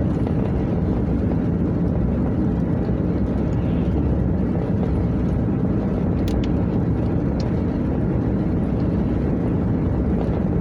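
Steady low rumble of road and engine noise inside a moving car's cabin, with a couple of faint ticks about six seconds in.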